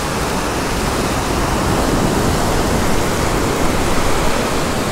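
Steady rushing noise of small surf washing onto the beach.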